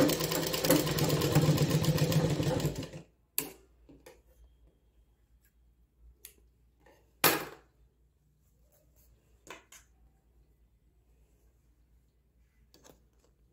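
Straight-stitch sewing machine running fast, stitching a seam through blouse fabric, then stopping about three seconds in. After that come a few separate knocks and clicks as the fabric is pulled out and handled, the loudest a single sharp knock near the middle.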